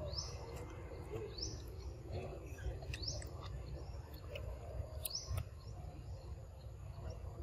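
A bird repeats a short, high, rising chirp every second or two over a steady low rumble of outdoor background noise. A few sharp clicks come in between.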